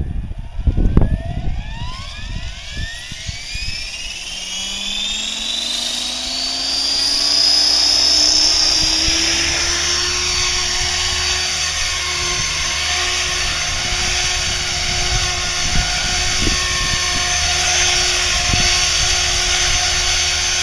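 Align T-Rex 500E electric RC helicopter spooling up: the brushless motor's whine rises steadily in pitch over the first several seconds, then holds at a steady high whine with rotor hum as the helicopter lifts off and hovers. Wind buffets the microphone with low rumbles near the start.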